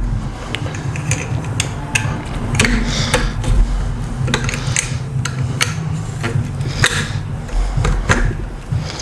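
Irregular metallic clicks and knocks as an AR buffer tube is screwed by hand into a 12-gauge shotgun's stock adapter, the parts turning and bumping against each other.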